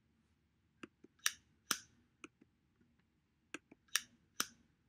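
A clapperboard snapping shut several times, sharp claps in pairs about half a second apart with fainter clicks between. The claps are a test signal for judging the room's echo with and without sound-absorbing panels.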